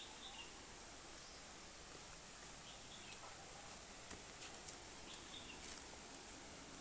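Faint outdoor ambience beside a rocky river: a steady hiss of flowing water under a high, steady insect drone, with a few faint bird chirps and scattered light clicks.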